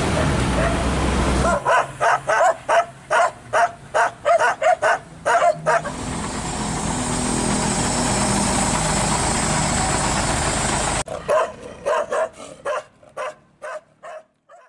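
Dogs barking in quick repeated barks, about three a second, in two runs; the second run fades near the end. Between them, and at the start, a truck's diesel engine runs steadily.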